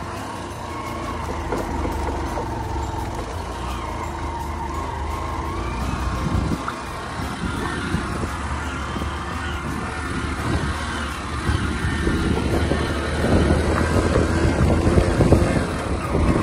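Motorcycle riding along a road: a steady low engine hum under a rushing noise, which grows louder and rougher in the last few seconds.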